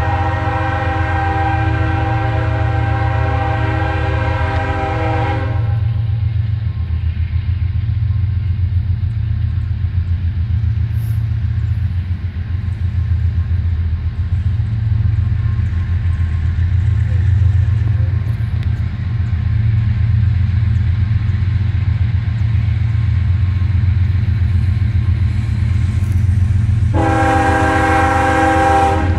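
Diesel locomotive's multi-chime air horn sounding a long chord for about six seconds, then a steady low rumble as the train approaches, and the horn sounds again near the end.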